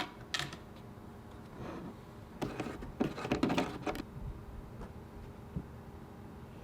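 Light clicks and rustling of small parts being handled: the CPU cooler's mounting backplate and hardware being picked up and fitted, busiest for a second or two near the middle.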